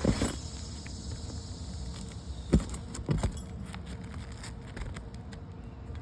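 A few short, sharp knocks of a roofer's pry tool working roofing nails loose under an asphalt shingle: one right at the start, one about two and a half seconds in, and two more close together about half a second later, over a steady low background hum.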